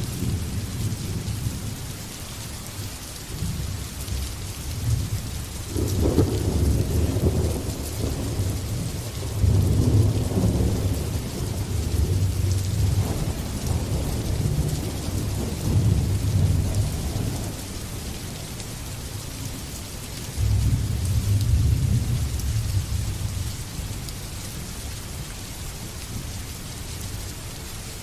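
Thunderstorm: steady rain hissing throughout, with rolls of thunder rumbling low several times, the strongest about six, ten and twenty-one seconds in.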